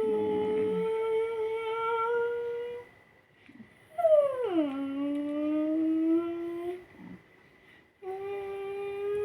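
A voice humming three long held notes, the second sliding down in pitch before levelling off lower, with short pauses between them. A faint steady high whine runs underneath.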